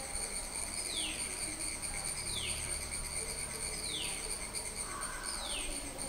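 A bird repeating a short call that falls in pitch, about once every one and a half seconds, over the steady high-pitched drone of insects.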